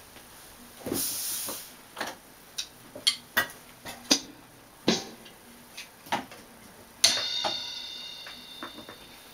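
Electronic drum kit being tried out with scattered single hits on the pads. About seven seconds in a cymbal is struck and rings out, fading over about two seconds.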